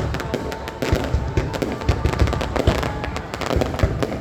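Aerial fireworks display: a dense run of sharp cracks and crackling bursts with deep booms every half second or so.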